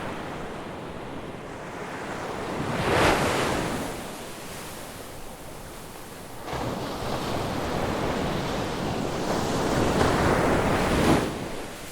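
Ocean waves breaking on a beach, a steady wash of surf with one wave cresting about three seconds in and a longer surge building from about six seconds in that peaks and drops away sharply near the end.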